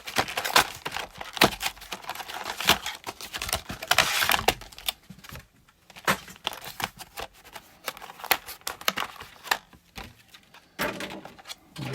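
Packaging of a Pokémon trading card collection box being ripped open by hand: tearing and crinkling with rapid clicks, busiest in the first five seconds, then scattered taps and rustles as the contents are handled.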